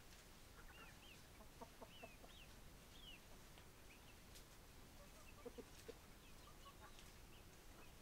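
Chickens clucking faintly, with a few short low clucks about two seconds in and again near six seconds. Small high chirping calls come in the first few seconds.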